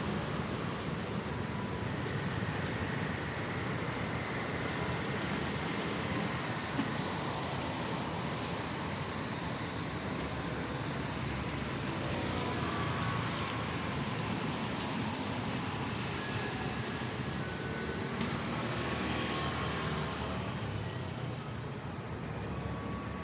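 Rainy city street ambience: a steady hiss of rain and tyres on wet road with vehicles passing. One engine changes pitch about halfway through, and a louder vehicle passes close a few seconds before the end.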